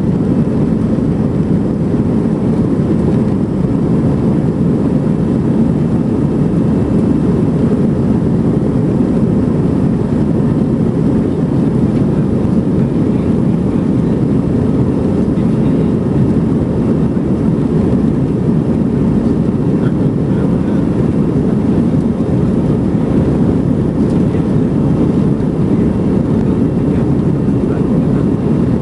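Steady jet engine and airflow noise inside the cabin of an Airbus A320, a deep even rumble that does not change.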